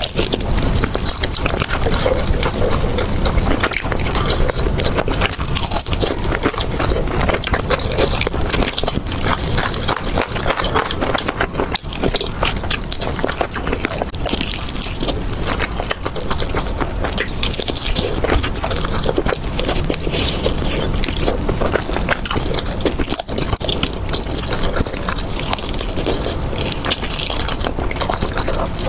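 Close-miked ASMR eating: biting into and chewing sauce-glazed fried chicken wings, a dense run of small crackles and mouth clicks.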